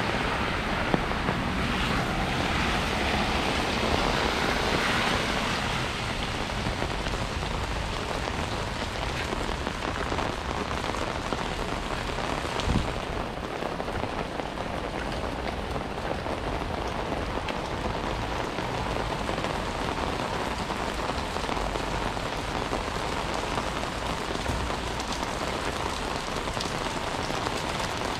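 Steady rain falling, an even hiss of drops, a little louder in the first few seconds. There is a single short knock about thirteen seconds in.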